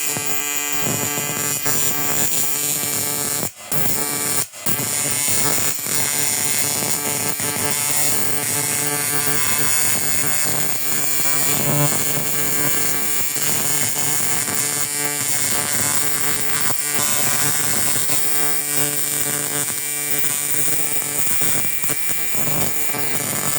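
Welding arc on the cracked aluminium fork knuckle, a steady electric buzz that breaks off for an instant twice, about a second apart, a few seconds in.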